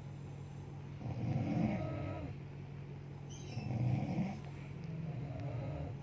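A woman snoring in her sleep: two snores, each about a second long and a couple of seconds apart, over a steady low hum.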